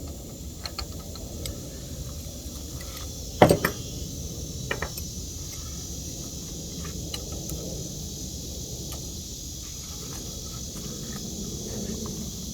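Metal tools clicking and knocking against the mini bike's engine parts as a bracket is worked loose, with a sharp knock about three and a half seconds in and another a second later. Insects chirp steadily behind.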